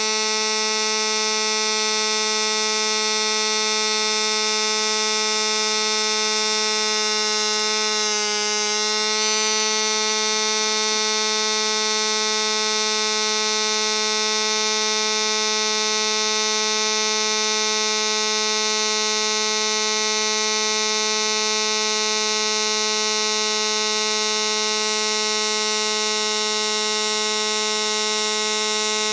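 Gobege 20V cordless tire inflator's compressor running continuously under load as it pumps up a car tire, pressure climbing from about 25 to 33 PSI toward its 35 PSI cutoff. It is a steady, high buzzing drone with a brief wavering about eight seconds in, heard sped up about four times.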